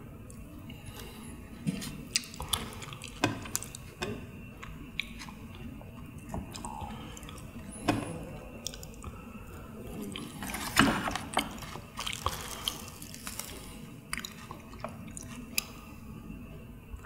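Close-miked chewing and wet mouth sounds of a man eating lettuce wraps of chewy sliced pressed meat (pyeonyuk), with short sharp clicks and taps throughout and a louder cluster a little past the middle.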